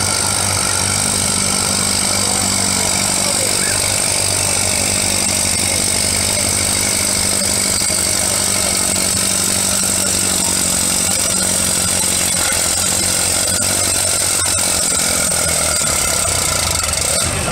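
Antique tractor engine running hard and steady under full load while pulling a weighted sled in a tractor pull.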